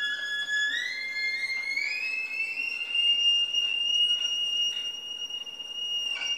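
Solo violin climbing note by note in a quick stepwise run, then holding one long high note as the closing note of the tune. A short sharp click comes near the end.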